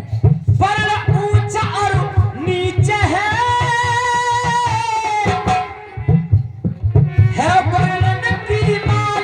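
Devotional kirtan singing with tabla-style hand-drum beats. About three seconds in, the voice holds one long wavering note for around two and a half seconds, then the sung phrases and drumming carry on.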